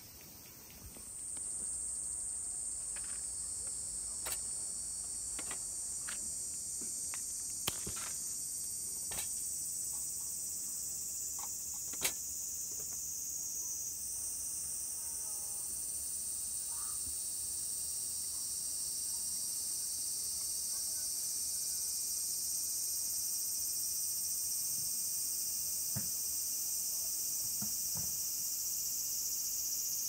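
Insects singing: a steady, high-pitched chorus that comes in about a second in and holds on, with a few brief faint clicks now and then.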